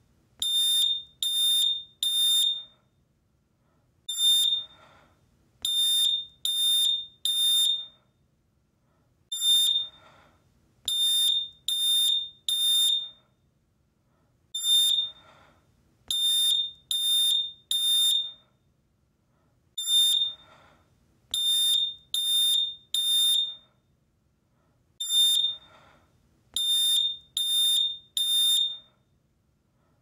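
Smoke alarm sounding, high-pitched beeps in repeating groups of four: one beep, a short gap, then three quick beeps, the group coming round about every five seconds.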